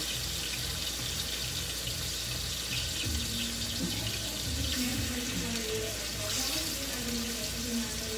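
Meat simmering in its cooking liquid in a frying pan on a portable gas stove, a steady hiss. A soft melody plays underneath from about three seconds in.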